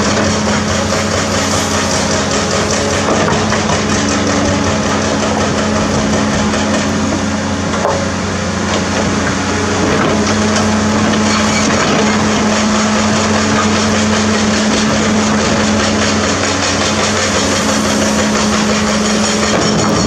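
CAT 336D2 hydraulic excavator's diesel engine running steadily under load as its bucket digs and scrapes through broken rock, with the rocks grinding and clattering against the bucket.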